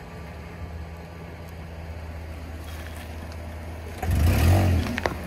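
A car engine idling steadily. About four seconds in, the engine gets louder as the car rolls forward, and its tyre crushes a head of leafy greens with a loud crunch and a few sharp crackles.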